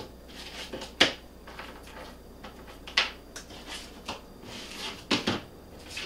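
Hard, dried hardtack crackers being picked up, pressed and set down on a parchment-lined baking sheet: a few sharp clicks and taps, about a second in, near three seconds, and a quick pair around five seconds. The crisp clicks fit crackers that have baked dry and hard.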